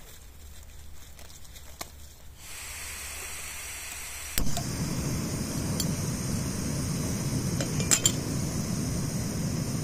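A pot of water heating for tea. A steady rushing hiss starts abruptly about four and a half seconds in, with a few light metallic clinks of cookware.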